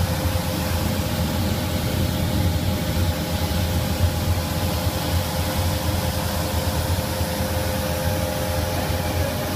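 Mung bean peeling machine running steadily: a constant low hum and a steady whine over an even hiss.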